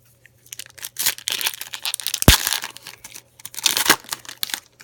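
A trading-card pack wrapper being torn open and crinkled, in two spells of crackling with a sharp snap in the middle.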